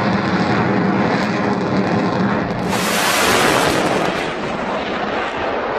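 Jet aircraft passing low overhead: steady engine noise, then a sudden loud rush of noise about three seconds in that slowly fades.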